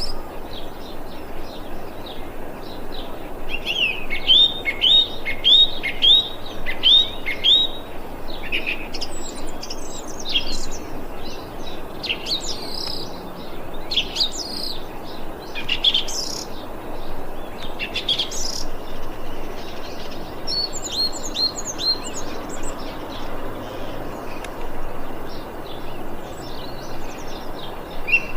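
Thrush singing: a quick run of about eight repeated down-slurred notes, then a string of varied shorter notes and phrases, over a steady background hiss.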